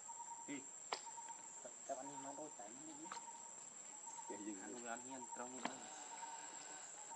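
Steady, high-pitched insect chirring, with a second, lower insect tone pulsing underneath. Faint voices come and go, and there are two sharp clicks.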